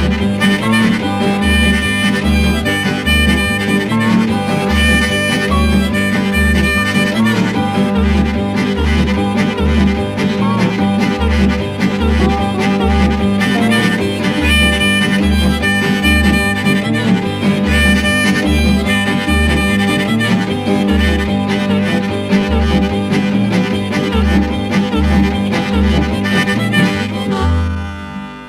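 Background music: a harmonica-led tune over guitar with a steady bass beat, fading out near the end.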